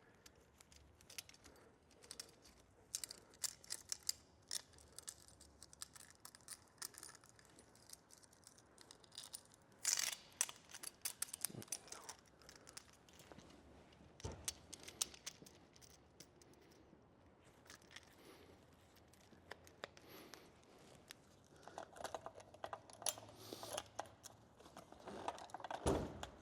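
Light metallic clicks and rattles of a saw chain being handled and fitted onto the guide bar and sprocket of a chainsaw being put back together, with busier clusters about ten seconds in and again near the end.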